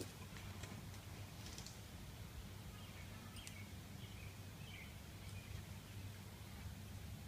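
Faint outdoor ambience: a steady low hum with a few faint bird chirps and scattered light clicks.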